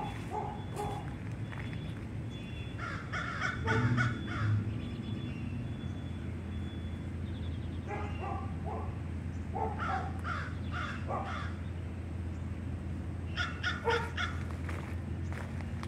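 Crows cawing in three short runs of quick caws, about three seconds in, again around eight to eleven seconds, and near the end, over a steady low hum.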